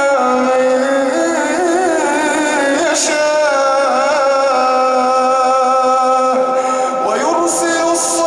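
A man reciting the Quran in a melodic, chanted style, holding long ornamented notes that waver and glide in pitch, with a new phrase beginning near the end.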